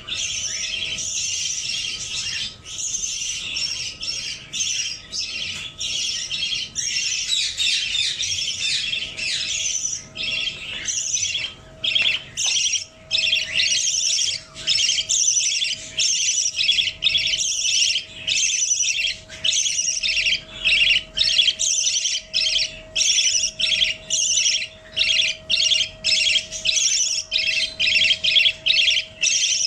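Budgerigar chattering and squawking without pause. About halfway through it breaks into a run of short, evenly spaced calls, roughly one and a half a second. A faint steady hum lies underneath.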